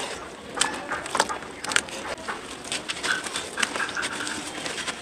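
Hands squeezing and breaking blocks of red dirt soaked in a tub of muddy water. Wet squelching and sloshing runs throughout, broken by irregular sharp crackles as the dirt crumbles apart.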